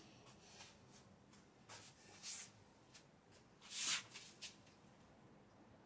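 A few short, faint rustling, brushing noises in a quiet small room, the loudest about four seconds in.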